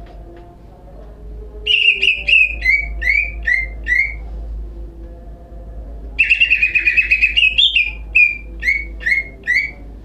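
Caged cucak ijo (green leafbird) singing in two bursts, each a quick run of short down-slurred whistled notes. The second burst opens about six seconds in with a rapid chattering trill. A faint low hum lies underneath.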